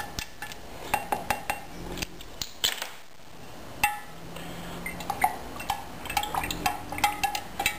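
A stirring stick clicking and tapping against the inside of a glass jar as lime powder is stirred into vinegar: irregular sharp clicks, some ringing briefly, coming in quick runs.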